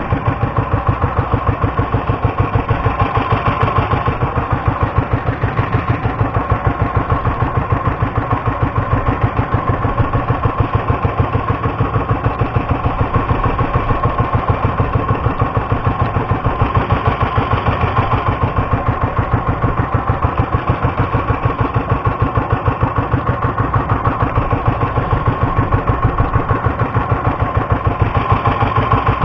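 Engine of a small motorized outrigger fishing boat (bangka) running steadily, with a fast, even beat of firing strokes.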